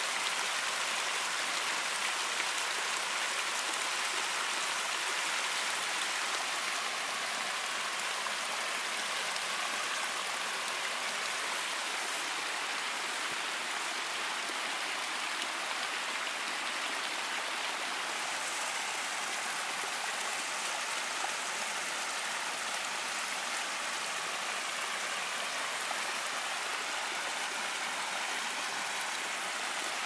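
Water from a small hot-spring-fed waterfall cascading over rocks: a steady, even rush and splash of falling water.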